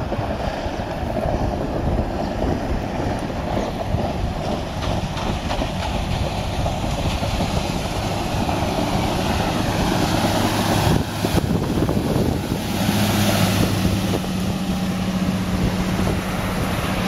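Wind buffeting the microphone over choppy water, with the Mercury Verado 225 HP supercharged straight-six four-stroke outboard of a passing boat coming in as a steady engine hum from about halfway through, strongest as it runs close by at speed near the end.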